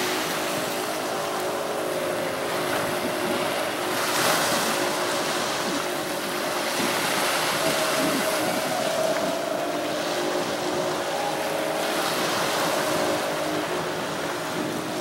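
Waves washing onto a sandy beach, with a steady hum of a boat engine underneath. A wave surges up about four seconds in.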